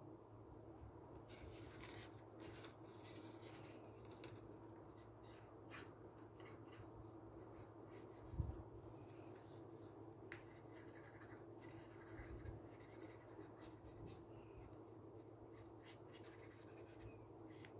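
A marker pen scratching faintly in short strokes on folded paper, colouring in a paper puppet, with a single low bump about eight seconds in.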